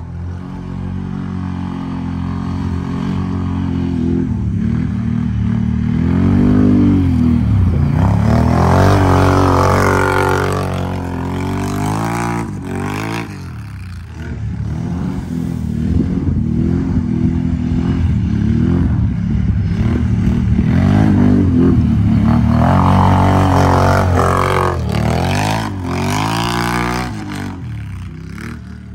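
Can-Am Renegade XMR 1000 ATV's V-twin engine revving hard as it drifts on snow, pitch sweeping up and down. It grows loud twice as the quad swings close.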